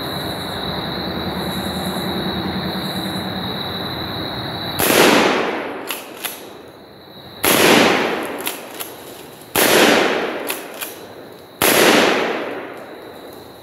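Benelli Nova 12-gauge pump-action shotgun firing handloaded number 9 birdshot: four shots about two seconds apart, starting about five seconds in. Each shot trails off over a second, and the pump is racked with a couple of clacks between shots.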